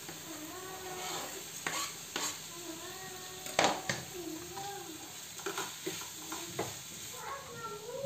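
Chopped capsicum sizzling and being stirred in a pan of hot frying masala, with a few sharp knocks, the loudest about three and a half seconds in. Under it, a wavering, voice-like tone comes and goes.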